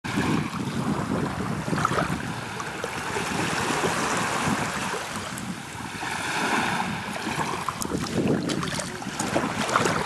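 Soft waves lapping and washing up a sand beach, swelling and easing every couple of seconds, with a crackly fizz of water draining back through the sand near the end.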